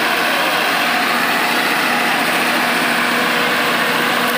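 Truck-mounted diesel generator set running steadily, a loud, even engine drone with a steady hum and no change in speed.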